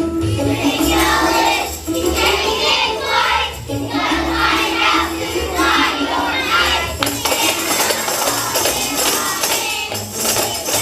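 Upbeat holiday song with a steady beat, tambourines shaking along and voices singing.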